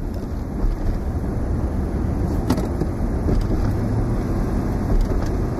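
Road and engine noise inside a moving car's cabin: a steady low rumble, with a single brief click about two and a half seconds in.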